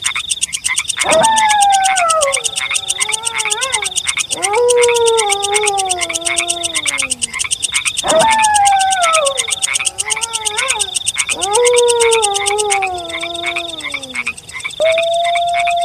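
Wolves howling: four long howls, each rising briefly and then falling away, about every three and a half seconds, with a long level howl starting near the end. Under them runs a steady night chorus of croaking frogs with a fast, even, high-pitched pulsing.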